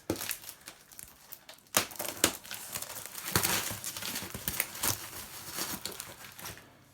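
Parcel wrapping being torn open and crumpled by hand: crinkling and rustling with sharp rips and snaps, a couple of loud ones about two seconds in, busiest in the latter half and easing off near the end.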